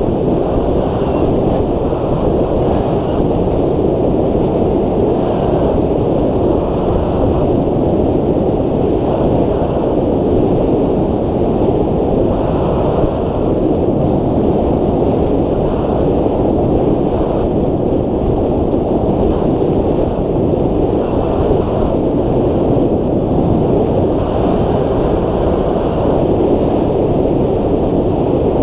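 Steady, loud rush of wind buffeting the microphone of a hang glider's wing-mounted camera in flight.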